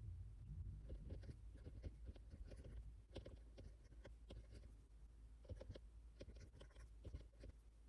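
Faint scratching and light irregular taps of a pen writing on paper.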